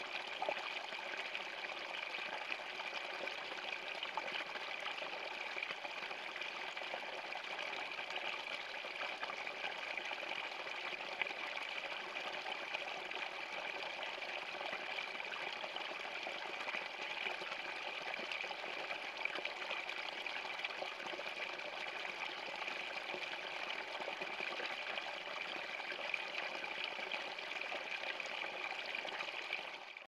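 Small cascade of water pouring from a pipe outlet and splashing into a shallow pool, a steady, even splashing with no change throughout.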